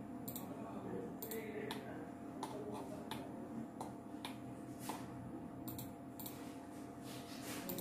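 Computer mouse clicking: a series of short, irregularly spaced clicks while a CAD drawing is being worked, over a faint steady hum.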